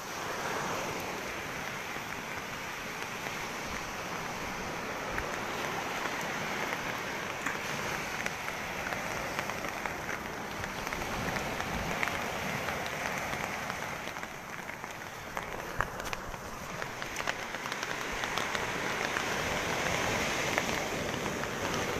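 Steady heavy rain mixed with the wash of rough, storm-driven surf, with scattered small raindrop ticks and a slight swell in loudness near the end.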